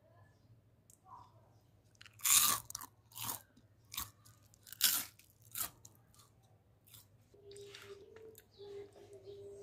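Crisp fried potato twists being bitten and chewed: a run of about five loud crunches over some three seconds, the loudest two of them about two and a half seconds apart.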